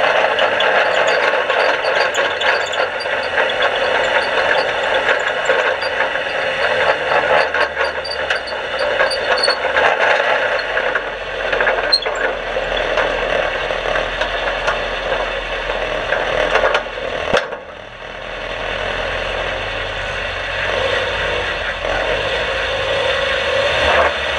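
In-car sound of a dirt-track race car: the engine running amid heavy rattling and clattering of the car's body and cage. About 18 seconds in, it drops to a quieter, steadier running as the car comes to a stop.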